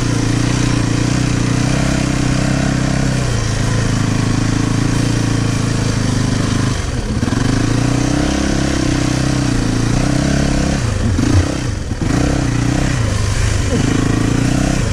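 Yamaha motocross bike's engine running under throttle while riding, the revs dropping and climbing again several times, about three seconds, seven seconds and eleven seconds in.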